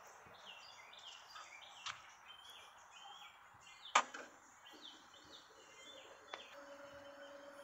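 Small birds chirping over faint background noise, with a few sharp clicks, the loudest about four seconds in. Near the end a low steady hum sets in as the LG washer starts up in spin mode.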